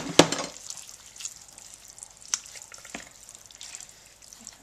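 Water poured into a soup pot of chopped vegetables and broth to top it up: a loud splash at the start that fades within about a second to light drips, with a few small clicks later on.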